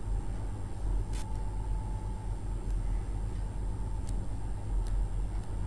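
Steady low rumble under a spoon spreading butter over a paratha on a hot tawa, with a few light clicks of the spoon about a second in and again near the end.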